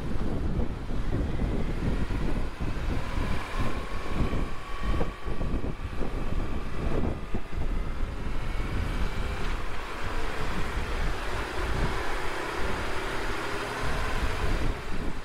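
Wind buffeting the microphone over the low rumble of a BMW R1150RT's flat-twin boxer engine, ridden at low road speed, with a faint whine that drifts up and down in pitch.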